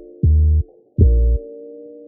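Background music with a beat: low kick-drum thumps and short deep bass notes under soft held chords.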